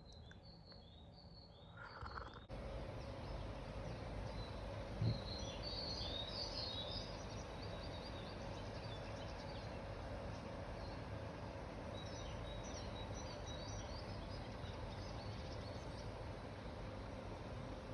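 Small birds chirping in short high calls over a steady outdoor background hiss, which steps up about two and a half seconds in. One soft thump comes about five seconds in.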